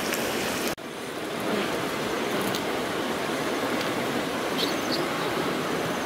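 Steady frying sizzle from crickets cooking in a pan over a wood fire, with a few faint crackles. There is a brief break just under a second in.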